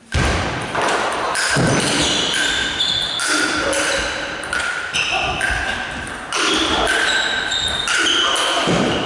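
Ping pong rally: repeated clicks of the ball on bats and table, mixed with short squeaks of shoes on the sports hall floor.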